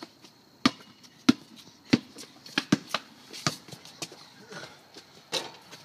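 Basketball dribbled on pavement: sharp bounces, the first few about every half second, then quicker and less even.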